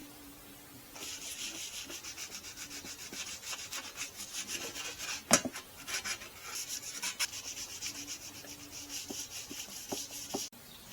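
Fast back-and-forth scratchy rubbing strokes on a hard surface, several a second, with one sharp click about halfway through; the rubbing stops suddenly near the end.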